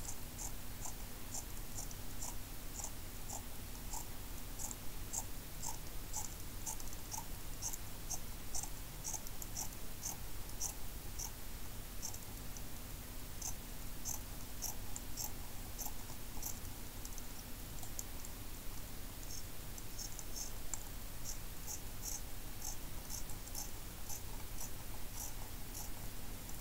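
Fabric scissors snipping through cloth in steady runs of short crisp cuts, about two a second, with a short pause about two-thirds through.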